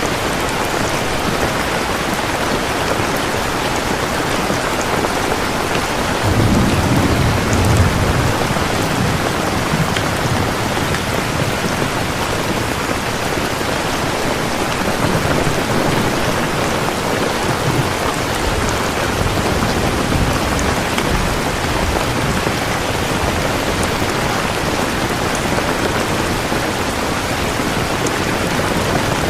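Steady rain, an even hiss of falling drops. A low roll of thunder swells in about six seconds in and fades after a couple of seconds.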